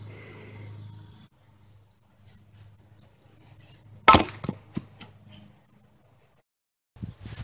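An axe with a tree-branch handle chops a short block of wood on a stump and splits it, one sharp chop about four seconds in. A few lighter knocks follow.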